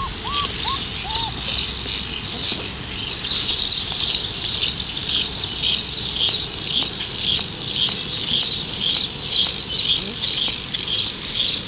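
Four-week-old Alaskan Malamute puppies giving about four short, high whimpers in the first second and a half. Behind them, and on to the end, is a high chirring that pulses two or three times a second.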